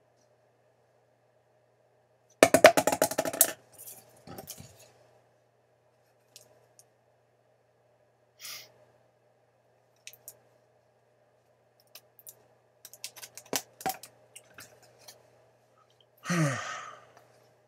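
A short clattering burst of handling noise, quick rapid clicks for about a second, comes a little over two seconds in. Scattered light clicks and taps follow, with a faint steady hum underneath, and a sigh falling in pitch near the end.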